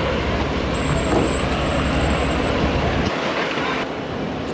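Strong wind buffeting the microphone, a loud, steady rumbling noise whose low rumble drops away suddenly about three seconds in.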